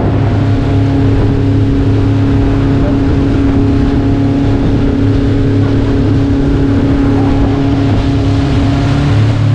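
Motorboat engine running at a constant speed, a loud steady hum that holds one pitch.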